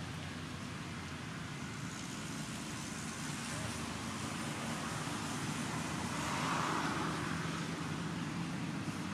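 Steady low hum of a running vehicle engine over a hiss of outdoor background noise, swelling slightly about two-thirds of the way through.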